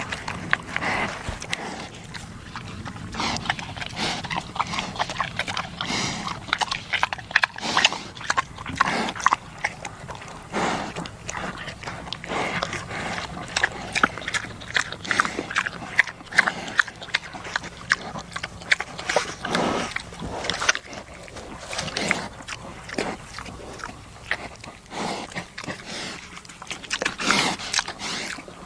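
Pigs grunting and squealing, with short calls coming one after another without a break.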